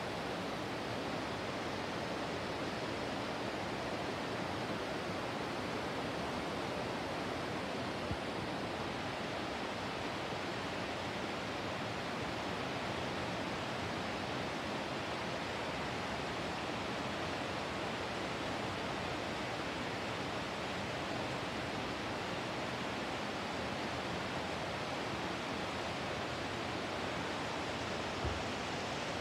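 Steady, even rushing noise with no distinct events, and one faint click about eight seconds in.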